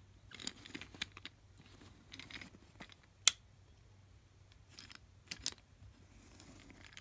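Toy Thomas engines being handled and set down on carpet: soft scraping and rustling, with a sharp click a little over three seconds in and two more about five and a half seconds in as the engines are pushed together and coupled.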